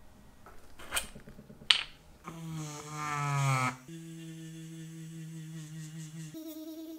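Two clicks of the Marathon-III micromotor's rocker switches, then the micromotor rotary tool running with a pitched whine as a mounted abrasive point grinds a watch case; the whine is loudest and slides in pitch at first, then steadies, and steps up in pitch near the end.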